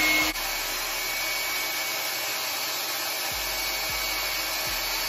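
Handheld hair dryer running, blowing a steady rush of air. The sound drops abruptly to a slightly lower level about a third of a second in, then holds even.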